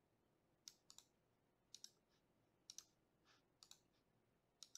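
Faint clicking of a computer mouse and keyboard: about a dozen short, sharp clicks, mostly in quick pairs about a second apart, as names are copied and pasted between a spreadsheet and a web form.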